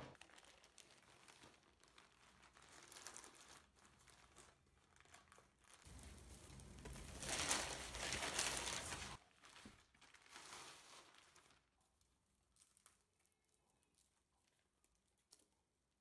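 Plastic courier mailer bag crinkling and rustling as it is opened and handled, loudest from about six to nine seconds in, then fading to faint handling sounds.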